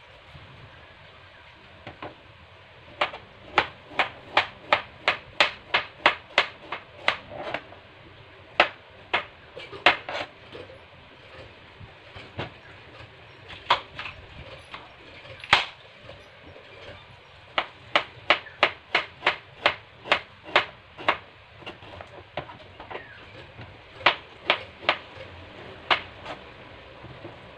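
A kitchen knife chops bamboo shoots (labong) on a plastic cutting board. The sharp knocks come in runs of about two a second, with pauses and a few single strikes between them.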